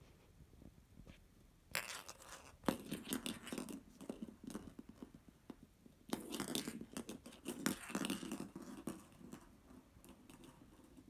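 Hollow plastic capsule ball batted by a cat's paw, clattering and rolling on a wooden floor in two spells of a few seconds each, with sharp clicks as it is knocked.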